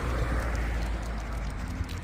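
Footsteps of a person and a dog walking on pavement, over a low steady rumble.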